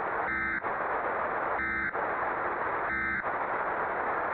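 Three short EAS end-of-message data bursts, the buzzy digital tones that close an alert, about a second and a half apart, over a steady hiss of static.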